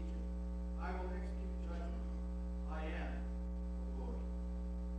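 Steady electrical mains hum with many overtones, under a faint, distant voice reading aloud in short phrases.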